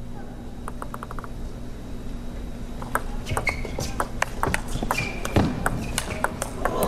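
Table tennis rally: a celluloid-type ball clicking sharply off rubber bats and the table in quick, uneven strokes from about three seconds in, with a couple of short shoe squeaks on the court floor. A quick run of light ticks comes about a second in, before the exchange.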